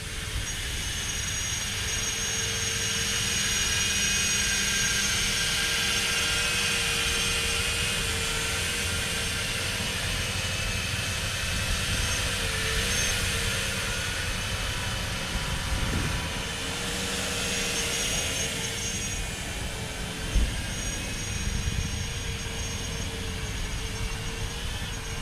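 FPV quadcopter on doubled-up eight-blade 3.5-inch ducted props (64 prop blades) hovering close by, making a strange, steady turbine-like whine with a resonance, its main tone wavering slightly as the throttle shifts.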